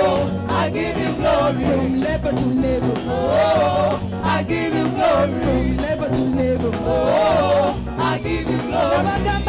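Upbeat gospel praise music: a singing voice over a band, with a bass line and a steady drum beat.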